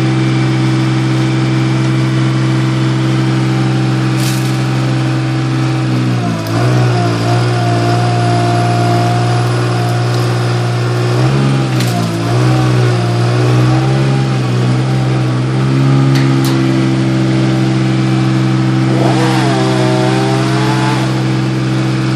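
Bucket truck's engine running steadily, its speed shifting a few times as the boom is worked. A chainsaw revs briefly near the end.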